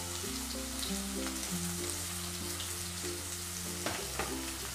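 Chopped onions sizzling steadily in hot oil in a kadhai, with soft background music over it.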